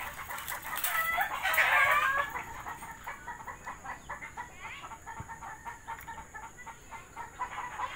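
A rooster crowing about a second in, the loudest sound, followed by fainter, short repeated calls from chickens.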